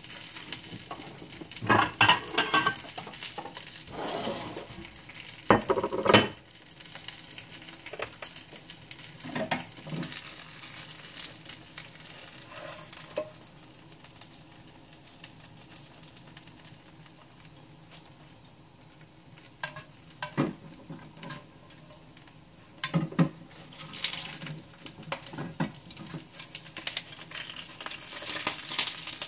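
Food frying in oil in a pan, a steady sizzle, with sharp clinks and knocks of a utensil against the pan several times. The sizzle eases for a few seconds midway.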